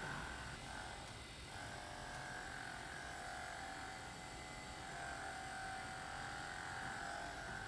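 Handheld percussion massager running steadily against the muscle, a motor buzz whose pitch wavers briefly about a second in.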